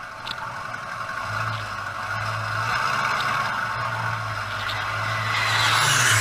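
A vehicle engine running, heard through a dashcam microphone: a steady low hum under a broad rushing noise that grows louder toward the end.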